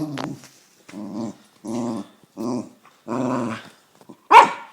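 West Highland white terrier giving a run of about six short growling barks, the last one near the end the loudest and sharpest.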